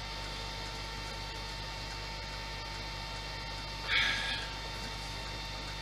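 Steady electrical mains hum with a short scratchy noise about four seconds in.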